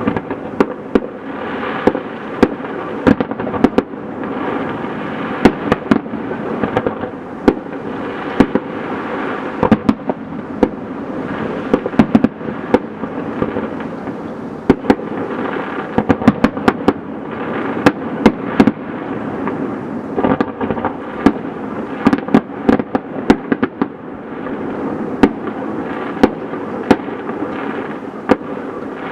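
Fireworks display: continuous crackling with many sharp bangs throughout, several coming in quick runs.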